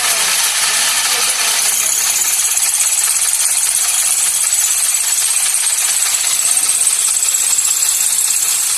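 Workshop machinery running steadily: a loud, even hiss with a high whine on top.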